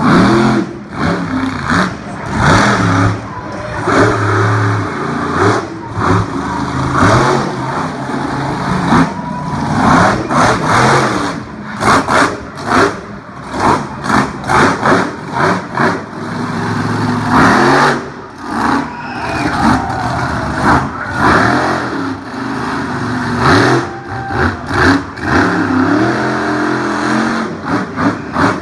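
Monster truck engine revving hard, its pitch and loudness rising and falling in repeated throttle bursts, with a run of quick short blips near the end.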